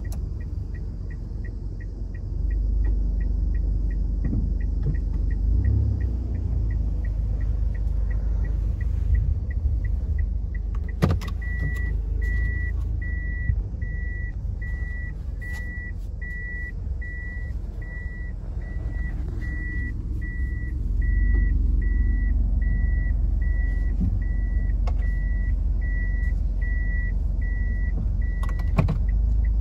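Car cabin of a Toyota Tank during parking: low engine rumble under a reverse warning beeper that beeps steadily about once a second from about 11 s in until near the end, just after a sharp click. Before that there is faint, quicker ticking.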